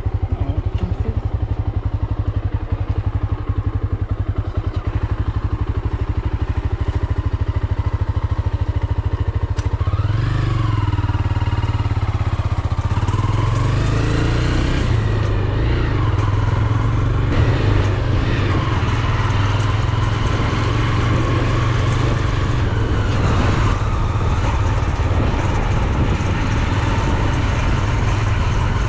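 Motor vehicle engine running on the move, with a steady low rumble; from about ten seconds in its pitch rises and falls several times as it speeds up and shifts.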